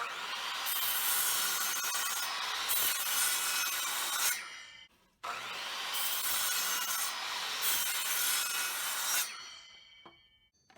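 Kobalt miter saw crosscutting wooden boards to length: two cuts of about four seconds each, with a short silence between. After the second cut a faint whine fades away as the blade winds down.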